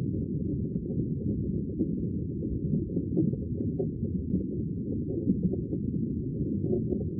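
Muffled, steady low rumble of sea water, even throughout with no separate waves breaking.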